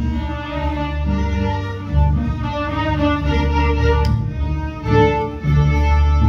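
Middle school string orchestra playing: violins carrying held notes over a strong low bass line that moves to a new note about every half second to a second.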